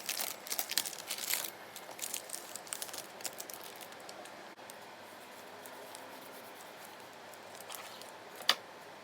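Crinkling and rustling with a quick run of light clicks in the first three seconds, then quieter, and a single sharp click near the end.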